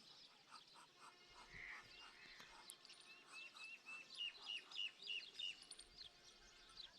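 Birds chirping faintly: many short chirps, with a quick run of repeated chirps, about three a second, from a couple of seconds in until past the middle.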